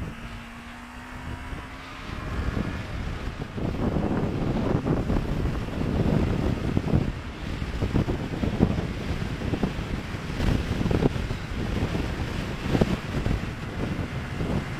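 Wind buffeting the microphone on a Yamaha R3 sport bike riding at speed, gusty and uneven, largely covering the engine. In the first two seconds the bike's parallel-twin engine is heard as a steady hum, rising slightly in pitch before the wind noise swells about two seconds in.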